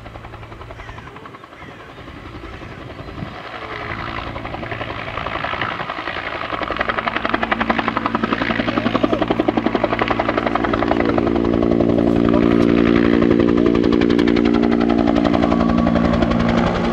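Bell UH-1 'Huey' helicopter lifting off and climbing away: the rotor and turbine grow steadily louder, with a rapid rhythmic beat from the two-blade main rotor, and are loudest from about two-thirds of the way in.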